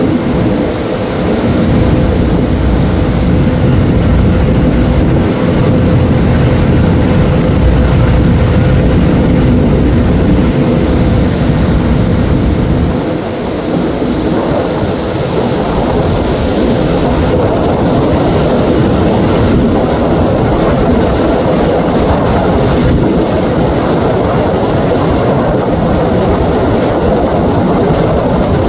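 Loud, steady rumble of a car ferry under way, with a steady hum that fades out about eleven seconds in.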